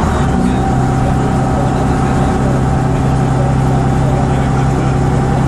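Bristol RELH6L coach's Gardner six-cylinder diesel engine heard from inside the saloon, running steadily as the coach drives along. Its note dips in the first half-second, then holds steady.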